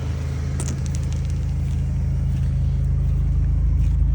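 Car engine idling: a steady low hum that grows slightly louder, with a few light clicks about a second in.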